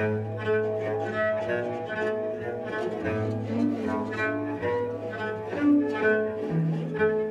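Cello bowing a long, held low note that moves up to a higher note near the end, under a quick run of short, ringing bass koto notes in a free improvisation.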